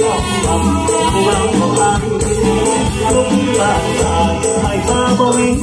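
Live mor lam music played loud through the stage sound system: a band playing a melody over a steady beat of bass pulses and repeated high percussion strokes.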